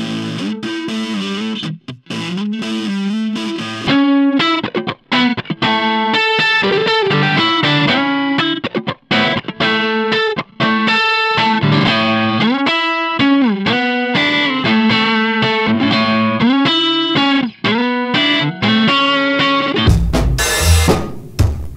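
Background rock music with distorted electric guitar. Near the end a brief burst of noise cuts across it.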